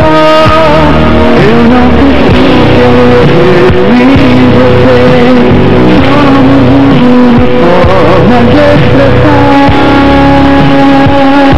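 Live gospel pop band music: a male lead vocalist sings a melody with long held notes over a full band of guitars, bass, drums and keyboards.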